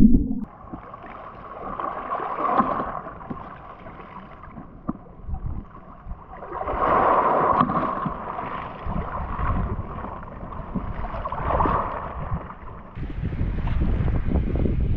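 Small waves lapping and sloshing, swelling in surges every few seconds, with wind buffeting the microphone more heavily near the end.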